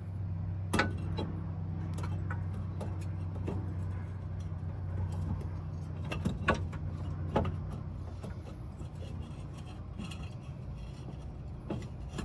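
Metal clinks and knocks of brake parts and hand tools being handled, the sharpest about a second in and twice more past the middle, over a steady low hum.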